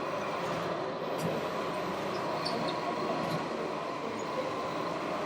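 Radio-controlled model trucks and construction machines running: a steady mechanical hum with a faint high whine and scattered light clicks.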